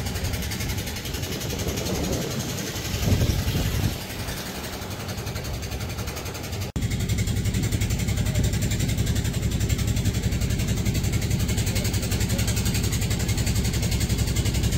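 Motorboat engine running steadily, a continuous pulsing rumble. About seven seconds in the sound cuts out for an instant, then the same steady engine sound carries on.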